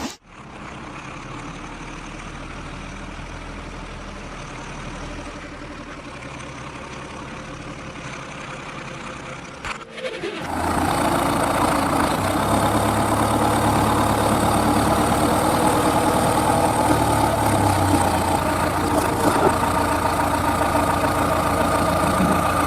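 Heavy diesel engine of a backhoe loader or truck, running steadily. It becomes much louder after a cut about ten seconds in.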